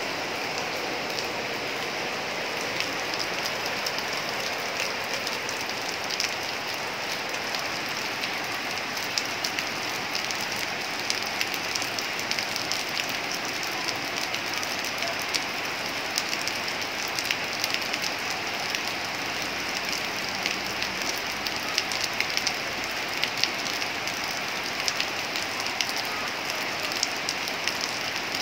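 Steady rainfall: an even hiss dotted with many sharp ticks of drops striking nearby surfaces.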